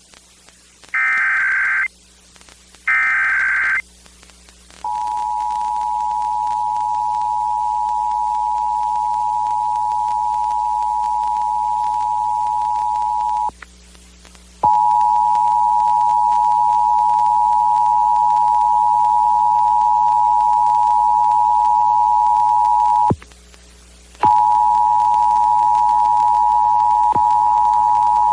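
Emergency Alert System test tones over FM radio. The last two bursts of the digital SAME header come first, each about a second long. About five seconds in, the loud steady two-tone EAS attention signal starts; it cuts out briefly twice.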